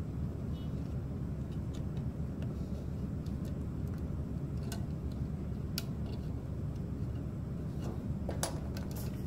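Small clicks and taps of a microcontroller chip's pins being pressed and worked into its socket on a circuit board, over a steady low room hum. A few sharper clicks come near the end as the chip seats.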